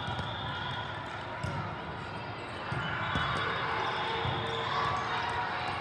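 Hubbub of a big indoor volleyball venue: balls thudding off hands and floors across several courts, with many overlapping voices of players and spectators.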